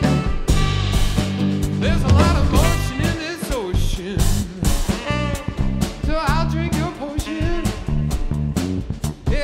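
Funk band playing live: a drum kit with steady cymbal and drum strokes over a strong bass line and electric guitar, with a lead line bending in pitch at a couple of points.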